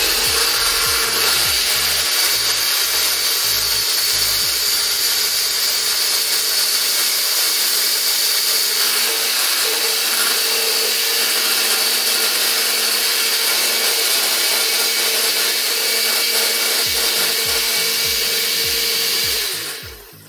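Countertop electric blender running steadily, puréeing onion, scallion, garlic and thyme with a little water into a green seasoning paste. The motor stops near the end.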